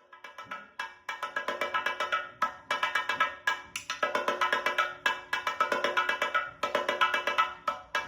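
Chenda drumming: fast, even stick strokes with a crisp, wood-block-like crack, coming in suddenly and running on in a steady stream.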